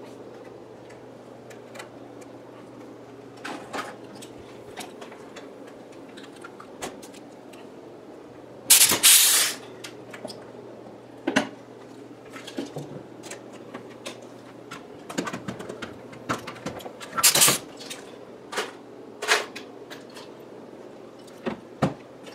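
A rivet tool and small hand tools being picked up and handled at a workbench: scattered clicks, taps and clatter, with a few louder short bursts, the loudest about a third of the way in and another about three quarters of the way through.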